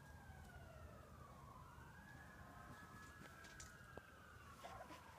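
Faint emergency-vehicle siren wailing, its pitch slowly falling, rising again and falling.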